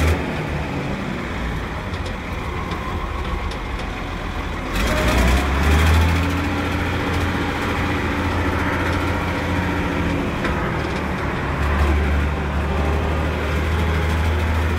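Chamberlain 354 tractor engine running under way, heard from inside the cab as a steady low drone. It grows louder about five seconds in.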